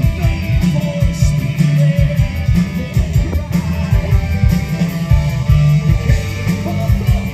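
Live progressive rock band playing, with electric guitar over bass and drums; the sound is dominated by a heavy, dense bass.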